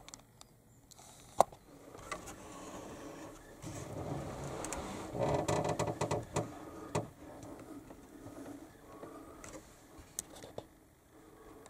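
Handling noise close to the microphone: scattered small clicks and knocks, and a louder stretch of rustling and scraping about halfway through.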